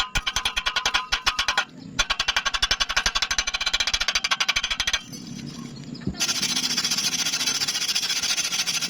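Rapid rhythmic clatter of about ten strokes a second, in two runs with a short break, then from about six seconds a steady crackling hiss typical of a stick-welding arc.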